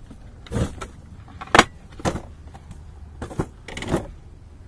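Folding metal step ladder clanking and rattling as it is opened and set up, with five or so knocks at uneven spacing, the loudest about one and a half seconds in.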